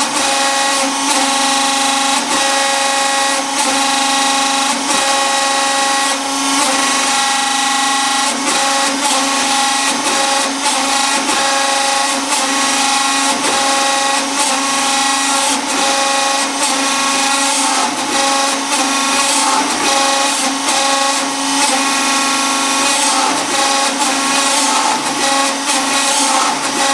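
A motor-driven machine running steadily, a constant pitched whine with strong overtones, overlaid by hiss and frequent irregular clicks and rattles.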